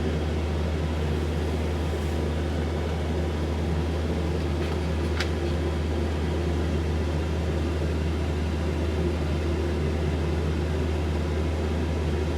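Pet hair dryer running steadily: a constant blower hum with a rush of air that does not change.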